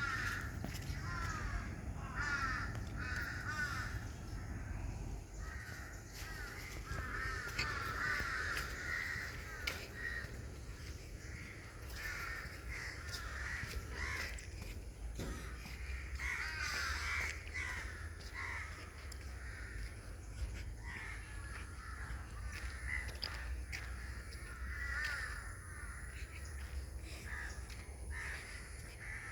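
Crows cawing over and over, in clusters of short harsh calls throughout, over a steady low rumble.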